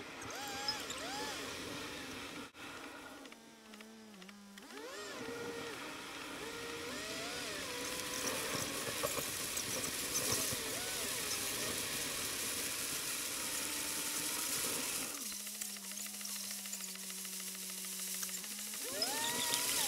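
Car driving in heavy rain, heard from inside the cabin: a steady hiss of rain and wet tyres with the engine note rising and falling as the car changes speed. Near the end it settles to a steady hum for a few seconds, then the engine note rises again as the car pulls away.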